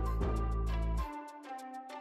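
Background music: a light tune over bass notes that drop in and out about once a second, with quick ticking percussion.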